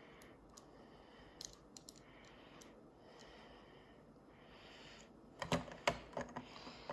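Small plastic toy pieces being handled and fitted together by hand: a few light clicks, then a quick run of louder clicks and knocks near the end.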